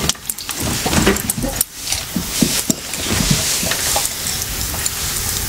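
Rustling and small metallic clicks as hands fasten a leash buckle onto a dog's collar, over a steady hiss.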